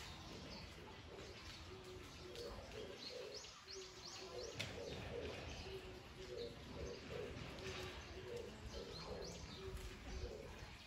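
Birds: a low cooing call repeated in short phrases, with quick high chirps over it.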